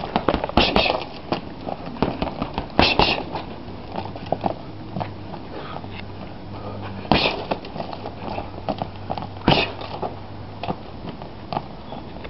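Gloved punches landing on a hanging heavy punching bag: irregular thuds and slaps, the hardest a little under a second in, around three seconds in, about seven seconds in and about nine and a half seconds in, with lighter blows between.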